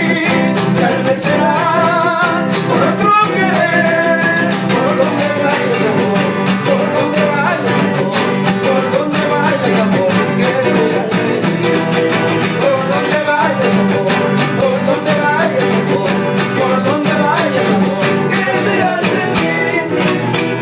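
A requinto guitar built by César Guacán plays a bomba melody over steady guitar and bass accompaniment.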